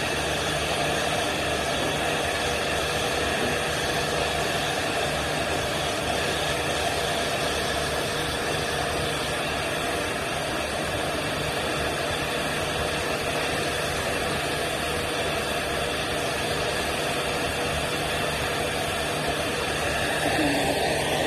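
Hand-held hair dryer running steadily: an even blowing hiss with a motor hum underneath.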